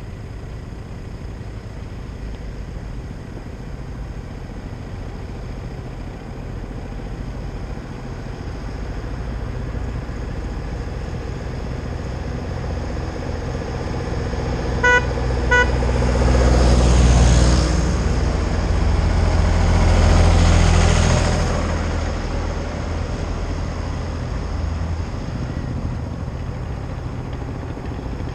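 Tractor engines approach with a low rumble. About halfway through a horn toots twice in quick succession, then two tractors pass close by, a few seconds apart, and their engines fade away.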